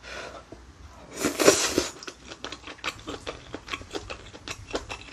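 Close-miked eating sounds of pork back-bone stew (gamja-tang) with noodles: a loud slurping intake about a second in as the mouthful goes in, then steady wet chewing with sharp mouth clicks, about three a second.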